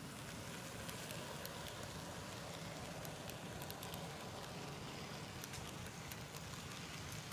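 HO-scale model freight cars rolling past on plastic-roadbed sectional track, with a steady low rumble and many small irregular clicks as the wheels cross the rail joints.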